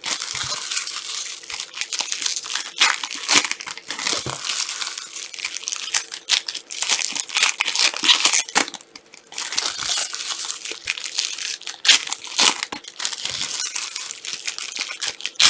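Plastic trading-card pack wrappers crinkling and tearing as packs are opened and handled, in an uneven run of crackles with short pauses.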